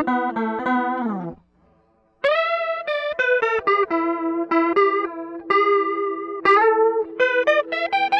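Electric guitar played through effects pedals: picked notes ring over a sustained low note, then the pitch slides down and cuts out about a second in. After a short pause, a new run of quick notes starts about two seconds in.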